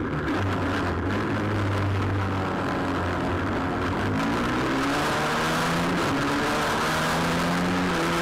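Pit bike's small single-cylinder engine running hard through corners, with wind rush on the onboard microphone; the engine note drops and climbs again about halfway through as the throttle is eased and reopened.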